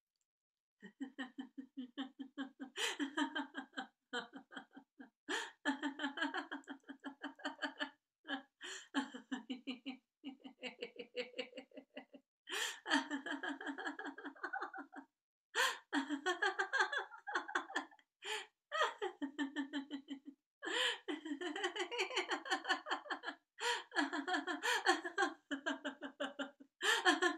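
A woman laughing deliberately and without stop in a laughter-yoga laughter sprint. It begins about a second in and goes on in long runs of rapid ha-ha pulses, broken every few seconds by quick in-breaths.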